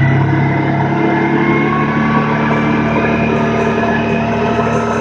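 Kawasaki Teryx S side-by-side's 783 cc parallel-twin engine running at a steady speed while being driven, over a steady rush of road and wind noise. Its note steps up in pitch shortly after the start.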